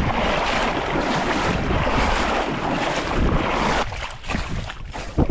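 Water sloshing and splashing around the legs of someone wading through a shallow river, a steady rush that drops away sharply about four seconds in, with a low wind rumble on the microphone underneath.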